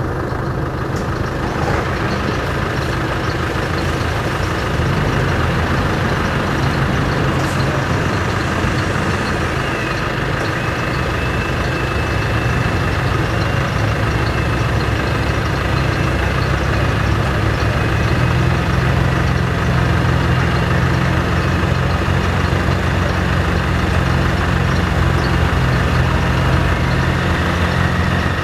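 Land Rover engines running steadily through a recovery of a stuck Land Rover Discovery, the engine note stepping up in pitch about eighteen seconds in, with a faint high whine alongside.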